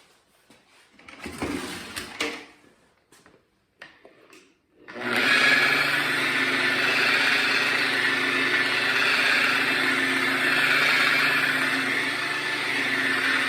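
Electric paint polisher starting up about five seconds in and running steadily, buffing compound into car paint. Before that, a few short rubbing and handling noises.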